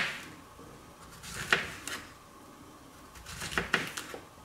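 Knife slicing through yellow summer squash and knocking on the cutting board at the end of each cut: a slow cut every second or so, then three quick cuts near the end.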